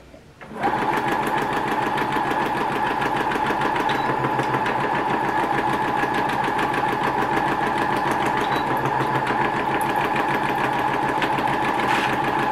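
Electric sewing machine starting about half a second in and running steadily at high speed, the needle stitching rapidly through a paper practice sheet.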